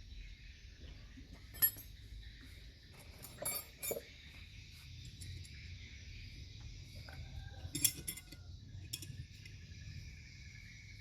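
Scattered metallic clinks and taps of tools and alternator parts being handled, sharpest at about two, four and eight seconds in, over a steady faint high hiss.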